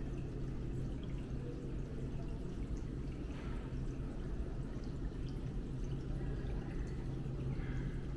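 Steady low rumble with a constant low hum underneath, unchanging throughout, with a few faint light clicks higher up.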